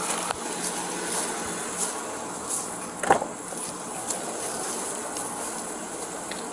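Body-worn camera picking up the wearer's footsteps and gear rustle while walking, over a steady high drone of insects. One short, sharp knock stands out about three seconds in.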